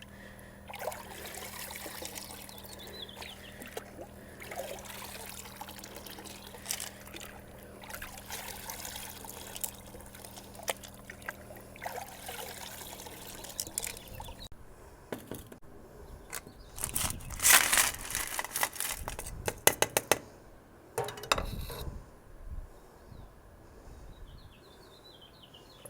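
Water pouring and trickling over rocks, with the rocks clicking and clattering against each other, loudest in a run of clatters about two-thirds of the way through. A low steady hum underlies the first half and stops about halfway.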